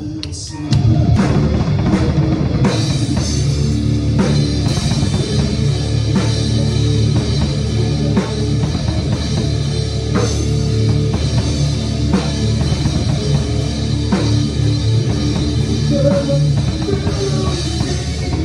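Rock song with a drum kit played hard over bass and guitar, cymbals crashing throughout. The band drops out for a moment near the start, then comes back in at full level.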